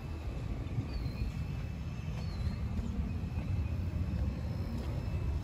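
Wind buffeting the microphone as a steady, gusty low rumble during an outdoor walk. A bird chirps faintly twice, about one and two and a half seconds in.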